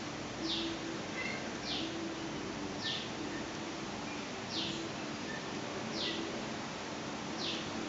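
1965 Mitsubishi 36-inch ceiling fan running with a steady low motor hum. A short, high chirp that falls in pitch repeats about every second and a half.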